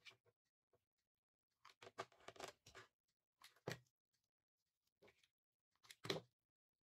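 Faint rustling and light knocks of jute twine being wound by hand around a plastic cream jar, in several short spells, the longest about two seconds in.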